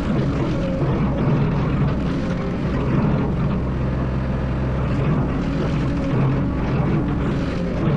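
Excavator's diesel engine running steadily at working revs, a constant low drone.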